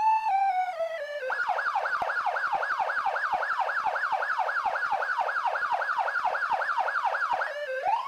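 Police siren pitch-corrected with autotune: the wail falls in stepped notes, then switches to a rapid yelp of about four sweeps a second, and rises again near the end.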